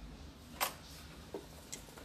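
A Janome 523H sewing machine's snap-on presser foot being released from its shank: one sharp click about half a second in, then a soft knock and a lighter click.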